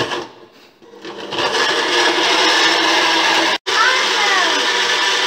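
Countertop blender motor switched on, spinning up about a second in and then running steadily while blending mango chunks, ice, sugar and water into juice. The sound drops out for an instant a little past halfway, then carries on.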